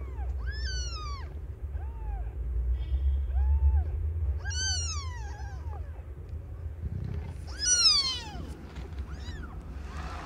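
Newborn kittens mewing: a run of short, high-pitched cries, each rising and then falling, with louder, steeply falling cries about a second in, near the middle and near the end. A steady low rumble sits underneath.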